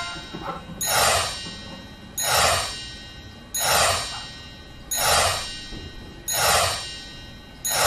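Background music with a breathy, hissing sound effect repeating six times, about once every second and a half, like loud cartoon breathing.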